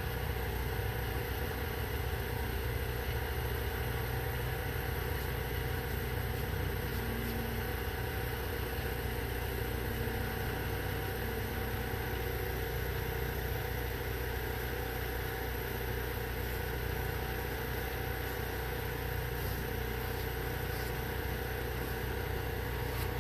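An engine running steadily at idle: a constant, even hum with no change in speed.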